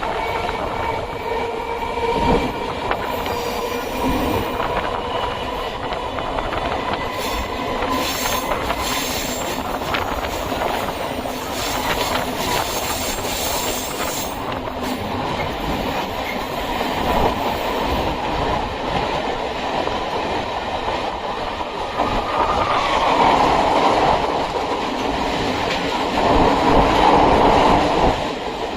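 Electric suburban train running along the track, with a steady rumble and wheel clatter. It grows louder for a few seconds near the end.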